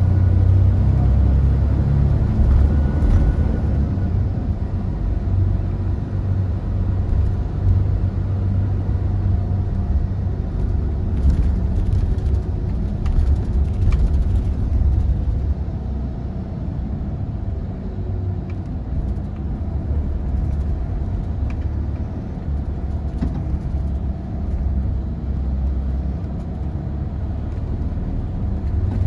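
Mercedes-Benz Tourismo coach's diesel engine and road noise heard from inside the passenger cabin while driving: a steady low rumble that eases a little past the middle as the coach slows.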